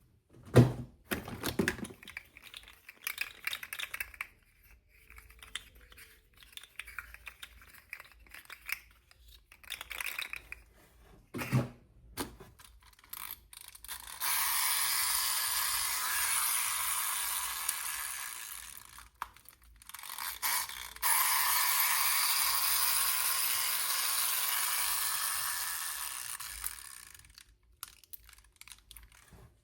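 Toy packaging being handled and opened: scattered clicks and taps of plastic and cardboard, then two long, even hissing rustles of several seconds each, the second fading away near the end.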